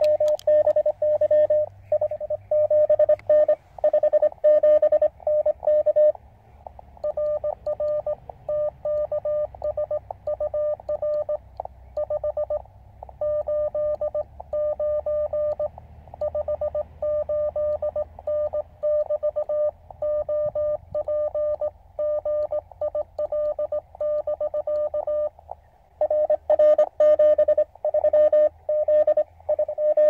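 Morse code (CW) on the 40 m band heard through a QRP Labs QCX-mini CW transceiver: a single-pitch tone keyed in dots and dashes, exchanging signal reports and 73. It is louder for the first six seconds and again near the end, and quieter through the long middle stretch, with short breaks between the overs.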